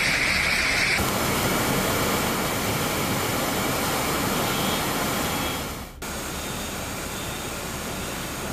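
Fast-flowing floodwater rushing in a torrent, a steady dense noise. It changes abruptly about one second in and dips briefly about six seconds in, where the footage cuts between clips.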